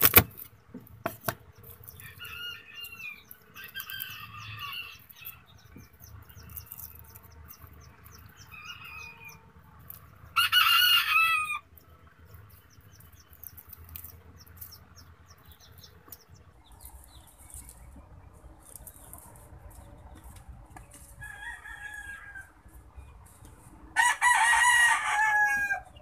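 A rooster crowing twice, loud and about a second and a half each time, once about ten seconds in and again near the end, with fainter chicken calls in between.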